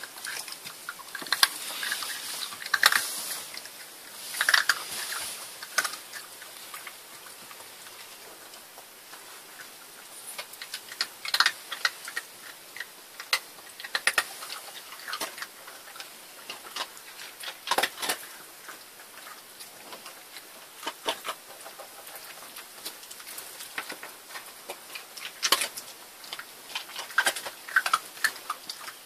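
Jack Russell terrier crunching dry kibble: irregular sharp crunches and clicks of chewing.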